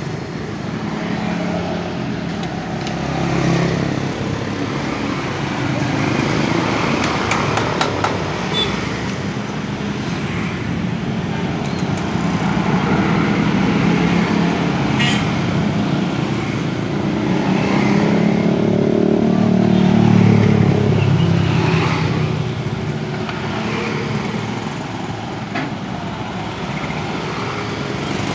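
Motor vehicles, mostly motorcycles, running and passing by, their engine noise swelling and fading several times, with indistinct voices and a few sharp clicks.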